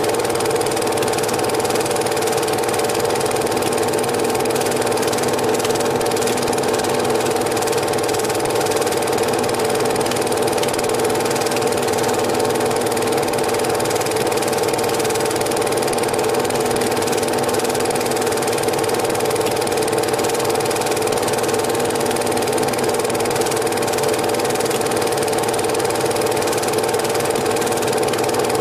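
Cine film projector running: a steady mechanical whir and clatter from its motor and film-advance mechanism, unchanged throughout.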